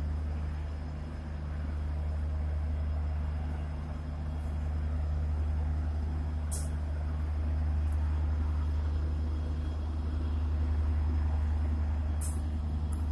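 Diesel engine of a train standing at the platform, running steadily as a deep, even rumble. A few short, sharp hisses break in, one about halfway through and two close together near the end.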